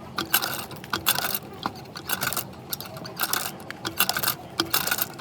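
Irregular clinking and rattling of small metal parts, several sharp clicks a second.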